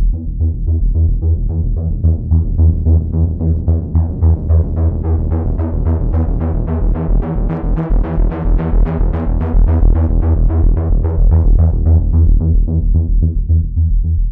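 Electronic synth bass loop, a deep bass pulsing about four times a second. Its tone grows brighter toward the middle and dulls again near the end.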